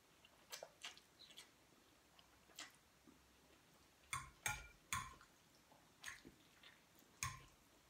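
Faint sounds of a person eating spaghetti: scattered short mouth smacks and small clicks while chewing, a few slightly louder ones about halfway through.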